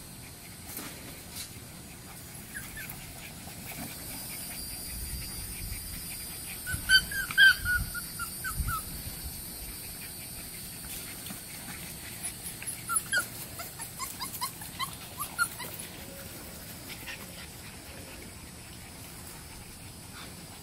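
Boxer puppies yipping and whimpering: a run of short, rapid high yips about seven seconds in, and another from about twelve to fifteen seconds in.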